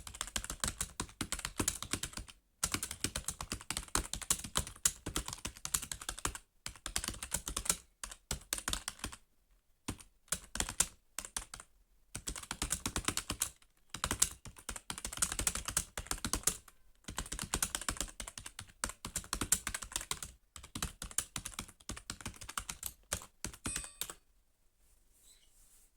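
Fast typing on a computer keyboard, rapid key clicks in runs of a few seconds with brief pauses between them, stopping about two seconds before the end.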